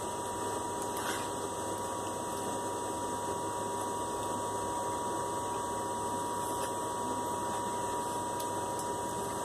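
Steady machine-like whirring noise with a constant high-pitched tone, and a few faint clicks.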